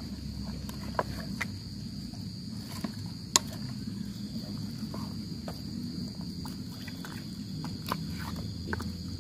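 A steady high insect drone, crickets or similar, with scattered sharp clicks and light knocks from a steel pot as bare hands mix spice paste into pieces of carp.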